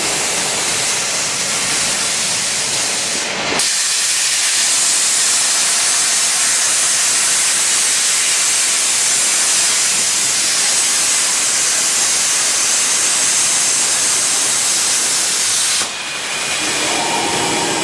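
CNC plasma torch hissing steadily as it cuts structural steel beam, a loud high hiss. The sound breaks off and picks up again about three and a half seconds in, and dips briefly near the end.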